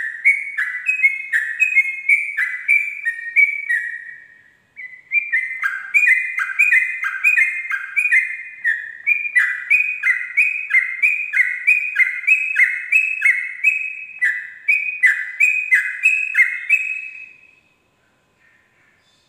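Yellow-vented bulbul (trucuk) singing its 'ropel': a long run of quick, evenly repeated falling phrases. The run breaks off briefly about four seconds in, then resumes and stops near the end.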